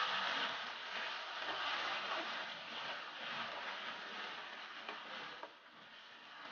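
Chicken pieces sizzling in hot oil in a non-stick wok while being stirred with a wooden spatula; the sizzle grows fainter and dies down about five seconds in.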